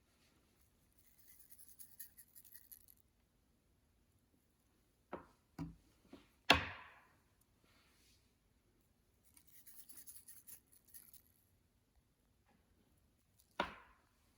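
Tabletop handling sounds. Two spells of faint, crackly rustling are broken up by a few sharp knocks, the loudest about six and a half seconds in and another near the end, like containers or tools being set down on a hard surface.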